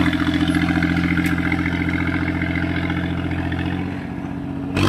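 Mahindra 265 DI tractor's three-cylinder diesel engine running steadily at one speed, opened up to full throttle, while pulling a disc harrow through the soil. It grows a little quieter near the end as it moves away.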